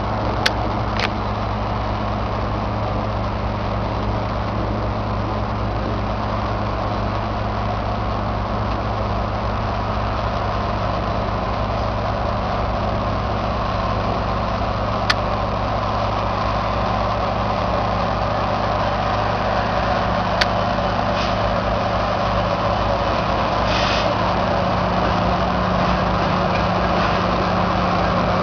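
GO Transit MP40PH-3C diesel locomotive running at low power as it moves slowly closer, its steady drone growing gradually louder, with a few sharp clicks.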